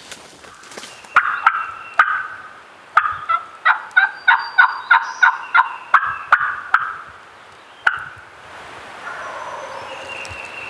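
Turkey hunter's pot (slate) friction call worked with a striker, giving a run of sharp, scratchy hen yelps: a few at first, then a steady string of about three a second, with a last one about eight seconds in.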